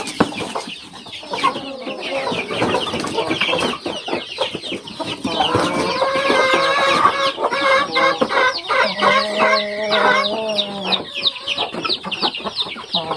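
Domestic chickens clucking and calling, with quick high calls falling in pitch all through and a longer drawn-out call about nine seconds in.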